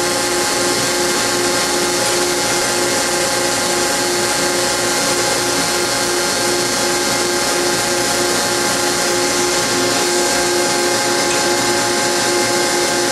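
Sandblast cabinet running with compressed air at about 120 to 140 PSI: a steady hiss of rushing air over the even hum of a motor holding a steady pitch.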